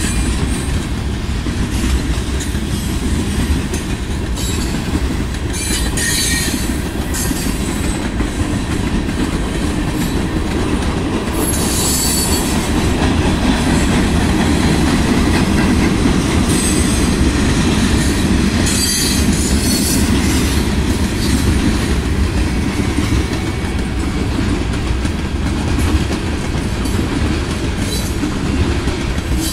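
Loaded freight train's gondola and tank cars rolling past: a steady heavy rumble of steel wheels on rail, with a few brief high-pitched wheel squeals.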